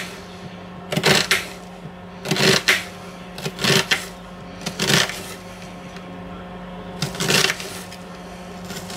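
Kitchen knife cutting down through an onion and knocking on a cutting board, about eight crisp chops, mostly in pairs, with a pause of about two seconds before a last chop, over a steady low hum. Each chop is a thin crosswise slice of a scored onion half, dicing it finely.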